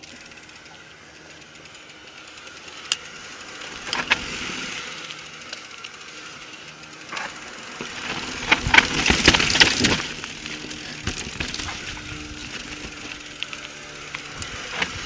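Full-suspension mountain bike rolling down a rock slab and rough trail: tyres rumbling over rock and dirt, with scattered knocks and a loud burst of rattling from the bike over rough ground about eight to ten seconds in.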